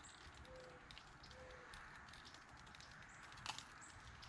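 Near silence, with faint clicks of a fillet knife working over a bass's rib cage and one sharper click about three and a half seconds in.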